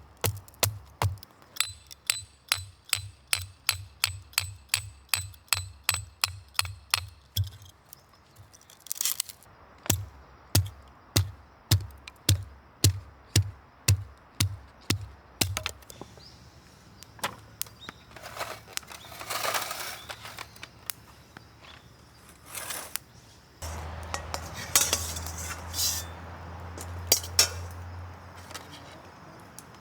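Background electronic music with a steady, even beat and a deep bass thump. In the second half there are hissing stretches and light clinks, from food frying in a wok.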